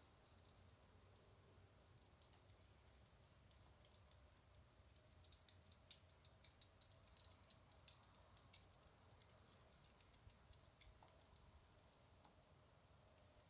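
Faint, rapid, irregular clicking, thickest in the middle and thinning out toward the end, over a faint steady high hiss.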